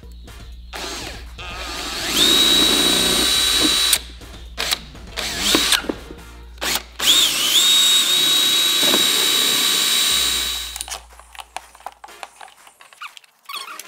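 Cordless drill drilling out the rivets that hold the two halves of a BMW 2002 heater box together. There are two runs of two to three seconds, each with a high steady whine that rises quickly as the motor spins up, and short bursts between them. Fainter clicks of the box being handled follow near the end.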